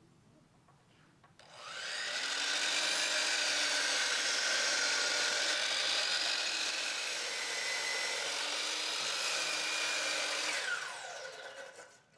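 DeWalt miter saw running and crosscutting a walnut board, starting abruptly about a second and a half in; near the end the motor is switched off and the blade winds down with a falling whine.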